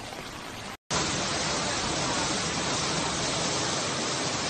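Steady rushing water noise, broken by a brief dropout just under a second in, after which it resumes louder.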